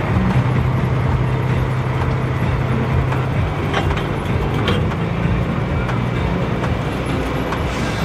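A tractor's diesel engine running steadily, its note shifting slightly about halfway through.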